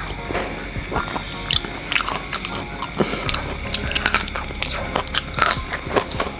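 A person eating close to the microphone: chewing and biting food, with many short clicks.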